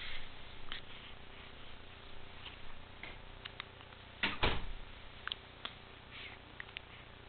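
A baby hiccuping: one short, sharp hiccup about four seconds in, amid faint small clicks.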